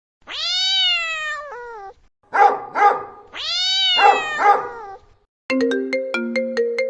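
A cat meowing: a long meow that drops in pitch at its end, two short meows, then another long meow with short meows over it. About five and a half seconds in, an Apple iPhone ringtone melody starts, quick plucked notes in a rapid run.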